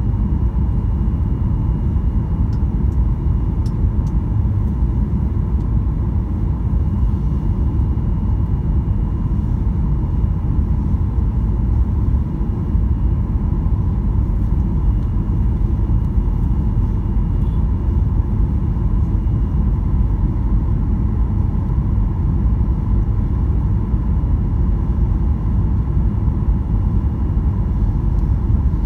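Steady low rumble of a Boeing 737-800's CFM56-7B engines and airflow heard inside the cabin, on approach with the flaps extended, with a faint steady tone running above it.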